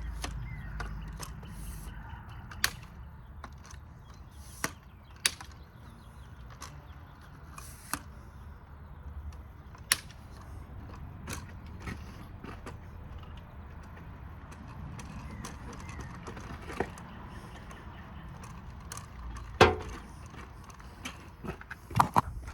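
Scattered clicks and knocks of someone handling equipment, over a steady low rumble. One louder knock comes near the end.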